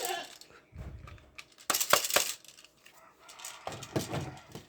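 Hard plastic clicks and rattles from handling a toy gun and its bullet box, with a sharp clatter about two seconds in.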